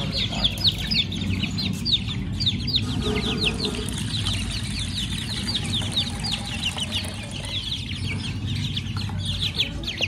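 A pen of young chickens peeping without pause: many short, high chirps, each falling in pitch, several a second and overlapping.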